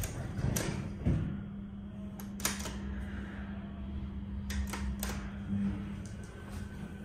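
Elevator floor buttons clicking as a finger presses them, several sharp clicks a second or two apart, over a steady low hum that starts about a second in and stops near the end.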